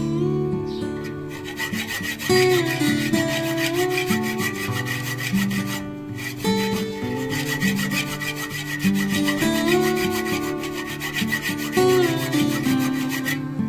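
Guitar background music over a fast, even rasping of a saw cutting through a metal gear, with a brief break around the middle.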